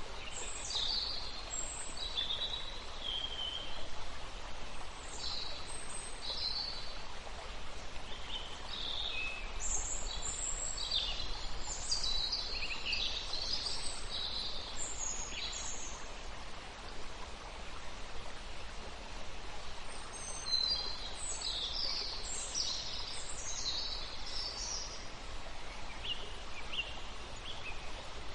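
Wild birds chirping and singing in short high phrases over a steady background hiss. The calls come thickest around a third of the way in and again past two-thirds.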